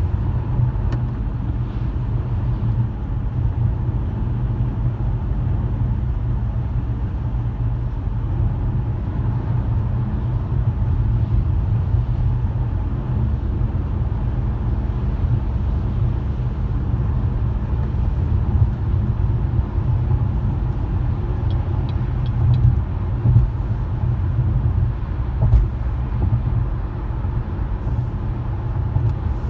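A car driving along, giving a steady low rumble of road and engine noise. A few light knocks come in the last third.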